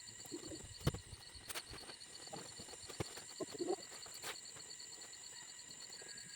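Insects trilling steadily, a fast even pulsing, with four sharp knocks scattered through the first few seconds.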